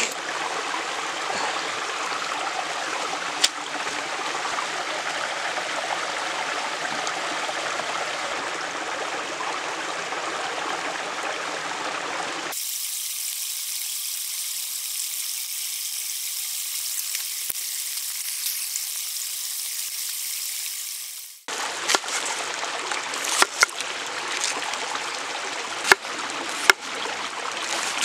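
Steady rushing noise of running water. After a cut it gives way to a thin hiss with faint crackles from a young wood fire, and in the last few seconds a knife slices through a red onion on a wooden board in sharp clicks.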